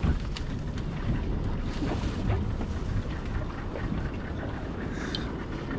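Wind buffeting the microphone over the wash of choppy sea around a small open fiberglass fishing boat, a steady low rumble with a few light knocks.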